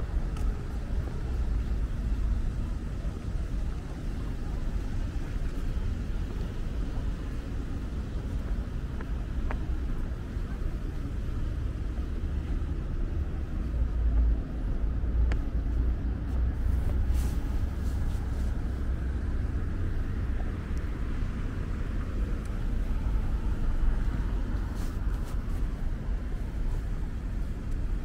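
Steady city street ambience: a continuous low rumble of road traffic.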